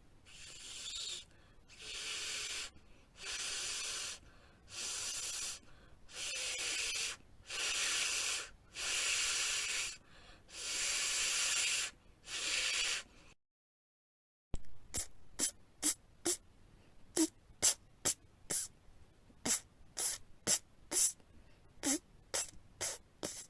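A person's voice making letter sounds: a hissing consonant held for about a second and repeated about nine times, then, after a short break, a quick run of short, sharp consonant clicks.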